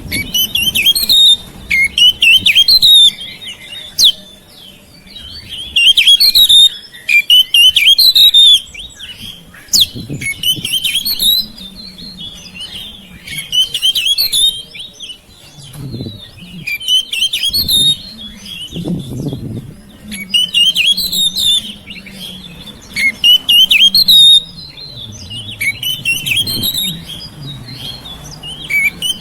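Oriental magpie-robin singing loudly in bursts of rich, warbling phrases, each a second or two long and repeated every few seconds. A faint low hum runs underneath.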